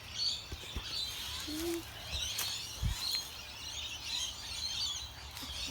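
Birds chirping and calling in the background, with a couple of brief low thumps.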